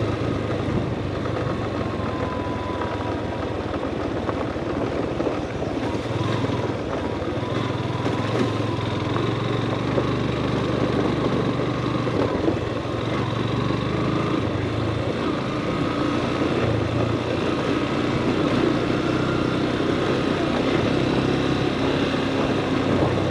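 Motorcycle engine running at low road speed on a rough dirt track, its note rising and falling a little, with the rattle and noise of riding over loose gravel.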